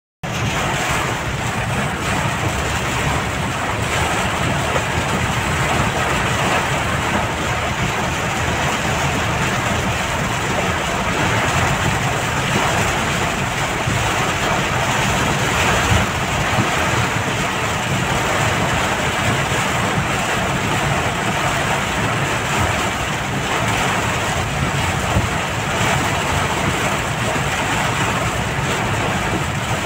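Heavy rain hitting a car's roof and windshield, heard inside the cabin as a steady dense hiss, with the low rumble of the car driving underneath.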